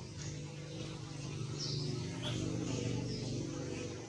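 Outdoor ambience: a steady low hum with a few short, high chirps over it, about three in the middle of the stretch.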